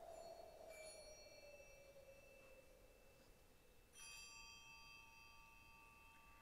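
Faint bell-like chimes, struck once lightly about a second in and again more strongly about four seconds in. Each strike leaves a long ringing tone, over a soft low tone that fades away in the first few seconds.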